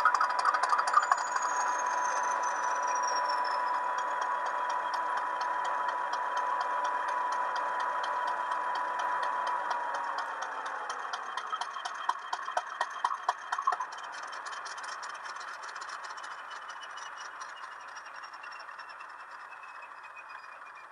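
Hornby HM7000 Bluetooth sound decoder playing its Class 50 diesel sound profile: the diesel runs with a steady whine that sinks in pitch about ten seconds in. A short burst of rattling clatter follows, and then the sound fades away as the engine winds down.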